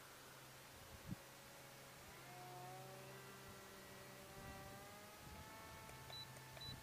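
Faint high-pitched whine of a distant RC airplane's motor, coming in about two seconds in and shifting slowly in pitch as the plane flies, over a steady low hum. A single knock sounds about a second in.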